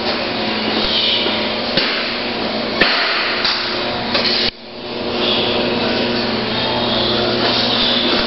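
Steady machine hum of a pig farrowing house's ventilation, with sharp knocks about two and three seconds in. The hum drops suddenly about halfway through and builds back over a second.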